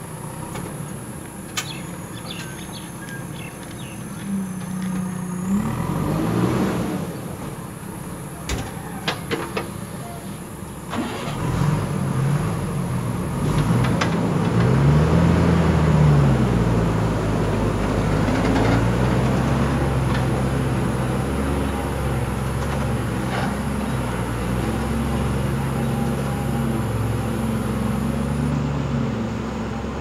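Heavy diesel engines of a JCB 3DX backhoe loader and a tipper truck running, with a few sharp knocks in the first part. From about eleven seconds in the engine note grows louder and rises and falls in pitch as it revs, then settles to a steady run as the loaded tipper pulls away.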